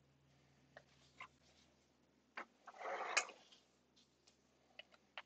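Faint scattered clicks and taps, with a short rustling, breathy noise about three seconds in.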